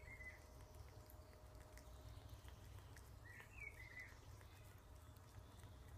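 Near silence: faint room tone with a low hum and two brief high chirping calls, one at the very start and one about three seconds in.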